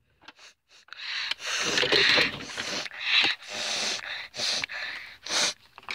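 A person sniffing the air in a series of about six long, breathy sniffs, acting out smelling food.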